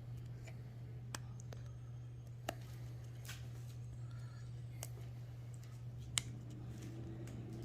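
Scattered small clicks and taps from tools and fingers handling an opened iPhone 8 Plus while its battery adhesive pull tabs are worked loose, over a steady low hum. There are about six clicks, the sharpest about two and a half and six seconds in.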